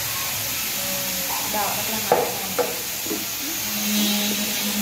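Steady hiss with two sharp knocks about half a second apart, around two seconds in, as the plastic cup and blender jug are handled, and a few short high-pitched calls in between.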